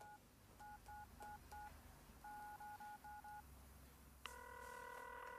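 Faint telephone keypad tones as a number is dialed: short two-tone beeps in quick groups, about five then five more. A steady ringing tone starts about four seconds in as the call goes through.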